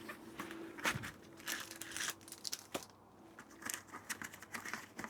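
Packaging being handled: plastic and paper crinkling and rustling, with a few light clicks as parts are picked out of the box.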